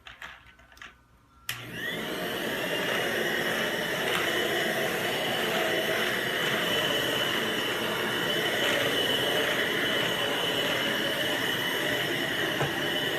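Deerma DX115C handheld stick vacuum cleaner switched on after a few clicks about a second and a half in. Its motor spins up with a short rising whine, then runs steadily with a high whine over a rushing airflow.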